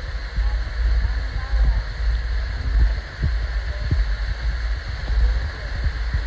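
Steady rush of a waterfall pouring into a pool, under a heavy, uneven low rumble.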